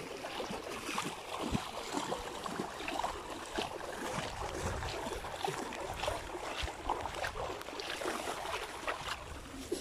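People wading through knee-deep floodwater: irregular sloshing and small splashes with each step.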